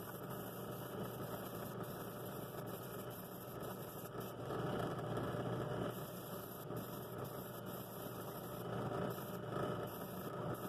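Flex pad sander with a 60-grit disc spinning steadily while a pine bowl ring is sanded on it: a constant motor hum under a coarse grinding rasp that grows louder for a while about halfway through.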